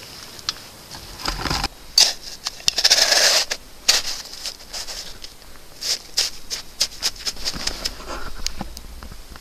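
Irregular clicks, scrapes and rustles of camping gear being handled while a small stove and meal are set out, the loudest a longer scraping stretch about three seconds in.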